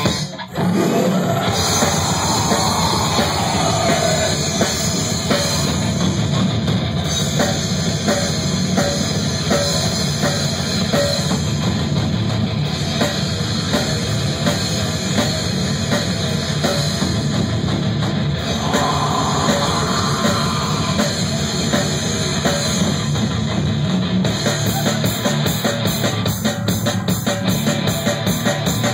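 Live heavy metal band playing loud: electric guitar, bass and a drum kit, with a brief break just after the start. Near the end the drumming turns to a fast, even beat.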